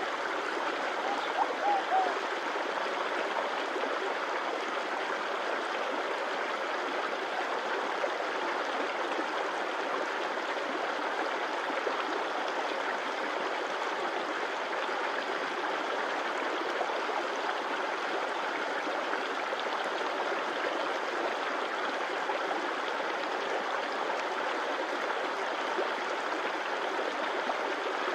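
A stream flowing steadily. A few short pitched sounds come about a second in.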